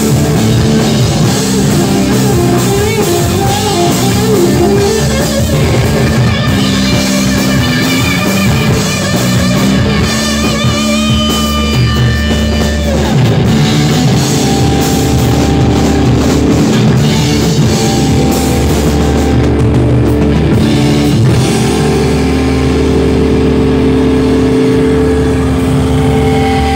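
Live rock band playing loud electric guitar and drums. In the last few seconds the band holds long, ringing notes.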